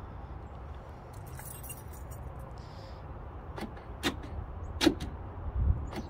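Newly installed aftermarket 12-volt power door lock actuator clacking as it is switched: three short sharp clacks in the second half, about half a second apart, the last the loudest. The actuator is working.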